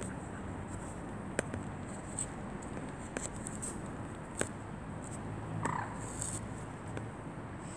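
Steady outdoor background hiss at night with scattered sharp clicks and one short bird-like call about six seconds in.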